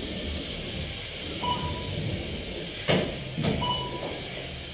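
Two short electronic beeps about two seconds apart, each lasting about half a second, with two sharp knocks between them, over a steady hiss.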